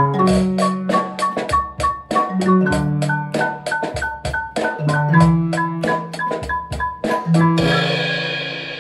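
Percussion ensemble playing: a drum kit keeps a steady beat of about four strokes a second under marimba and glockenspiel melody and low bass notes. A cymbal wash rings out about three-quarters of the way through.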